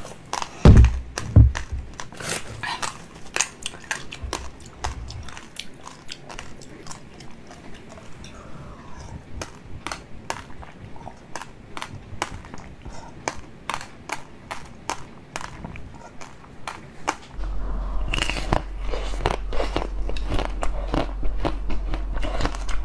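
Close-up mouth eating sounds: sucking and wet clicks as seeded fruit jelly is drawn from a large jelly bag, with two heavy low thumps about a second in. Near the end, a steady low hum comes in under crisp crackling bites into a pink chocolate-coated ice cream bar.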